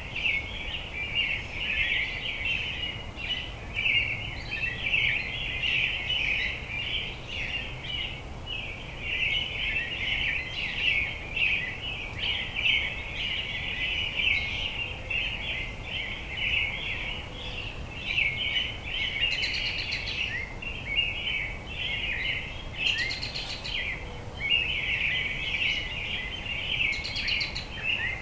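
A chorus of many small birds chirping and twittering without a break, thick overlapping calls with a few higher notes breaking through now and then.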